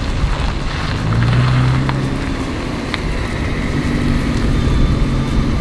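Nissan GT-R running: a low engine hum that swells about a second in and again near four seconds, under a steady rushing noise.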